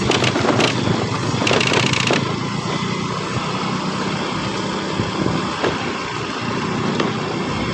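Vehicle engine running at a steady pace, with road and wind noise and a brief rattle about a second and a half in.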